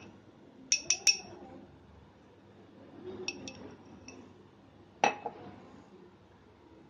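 Steel spoon clinking against a cut-glass tumbler: three quick ringing clinks about a second in and a few lighter ones around three seconds, then a heavier knock near five seconds as the glass is set down on the stone countertop.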